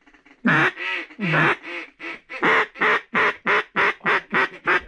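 Mallard duck call blown close by: a run of loud quacks, the first few long and drawn out, then shorter and quicker, about four a second by the end.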